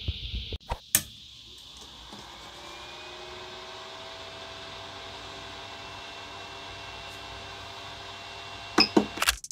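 Creality Ender 3 Pro 3D printer switched on at its rocker power switch, one sharp click about a second in. Its cooling fans then spin up, rising briefly in pitch, and settle into a steady hum with a faint whine. Several sharp clicks come near the end as the control knob is pressed.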